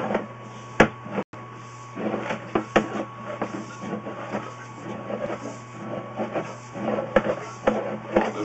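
Sewer inspection camera rig: a steady electrical hum with a faint high tone, broken by irregular knocks and clicks as the camera is worked along the pipe, getting busier near the end.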